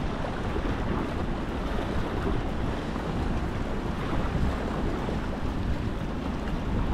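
Steady wind noise on the microphone over the wash of choppy sea against harbour rocks.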